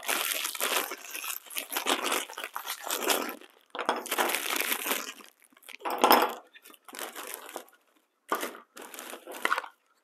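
Clear plastic packaging bag crinkling and rustling as it is handled, in irregular bursts with short pauses between them.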